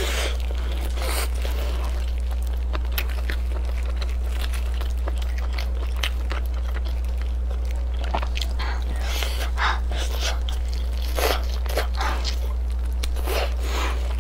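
Close-miked chewing and biting of braised ribs, with wet smacks and clicks as meat is torn from the bone, busier in the second half. A steady low hum runs underneath.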